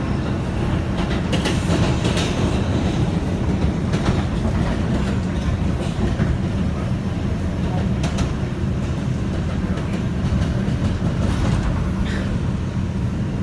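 R142 subway car running on elevated track, heard from inside the car: a steady low rumble of wheels and motors, with a few sharp clacks from the wheels over the track.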